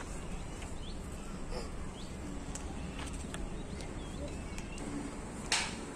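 Outdoor rural ambience: small birds giving short rising chirps now and then over a steady low rumble, with one brief sharp noise about five and a half seconds in.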